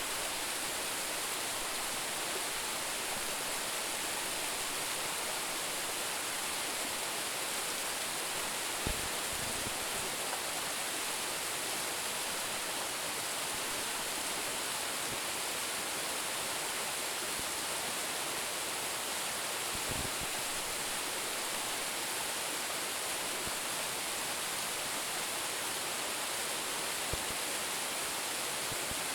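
Water of a small waterfall, about a 10-metre drop, rushing steadily as an even hiss. Three brief low thumps stand out at even intervals, about 9, 20 and 27 seconds in.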